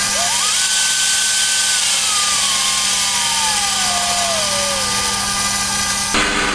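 Scheppach DP40 drill press's motor running loud and rough while its speed is adjusted with the knob: a whine climbs quickly, holds, then slides steadily down over several seconds as the speed is changed. The running has a grating, scratchy edge that the owner likens to worn brushes, and about six seconds in it turns to a lower hum.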